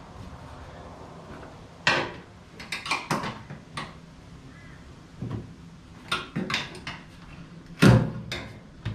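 Irregular knocks and metallic clanks from hands and tools working around the fuel tank in a Volkswagen Super Beetle's front trunk, coming in short clusters, with the loudest knock near the end.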